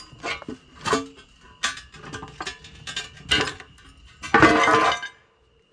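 Metal hand tools (wrenches) clinking against each other as they are picked through, several separate ringing clinks, then a louder clattering rattle about four and a half seconds in.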